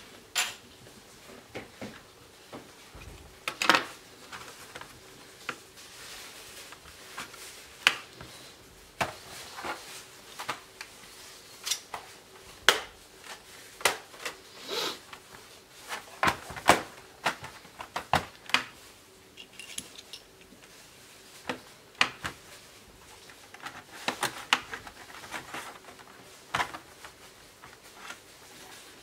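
Irregular clicks, taps and knocks of a disassembled Toshiba Satellite C660D laptop's plastic case and small parts being handled and set down on a workbench, some of them sharp.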